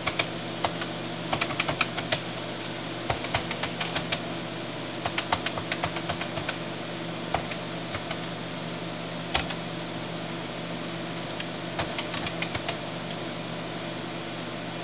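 Computer keyboard keys clicking in short, irregular bursts as a machine-monitor command is typed, over a steady low hum.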